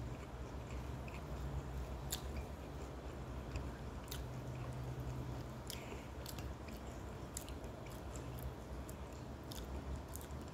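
A person chewing food with her mouth closed, with scattered short sharp mouth clicks, over a steady low hum.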